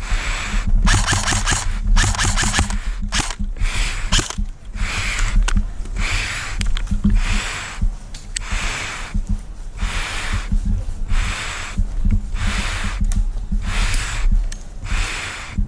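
A person breathing hard and fast into the microphone, with a steady rhythm of a little over one breath a second, over a low rumble of wind and handling noise.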